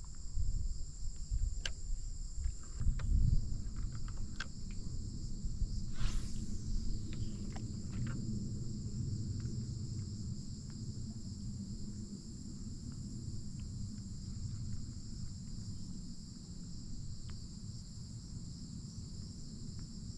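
Steady high-pitched drone of insects chirring in the surrounding marsh, over a low rumble. A few light knocks sound in the first several seconds.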